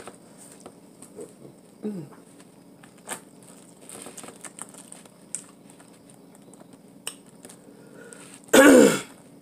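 Eating sounds of a person peeling and eating boiled crawfish by hand: small clicks and cracks of shell, with light smacks and rustles. Near the end, one brief loud vocal sound that falls in pitch.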